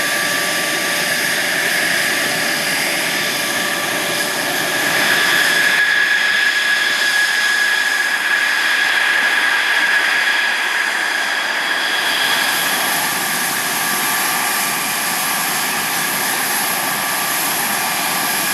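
F-16 jet engine running steadily, a rushing noise with a high turbine whine held at one pitch.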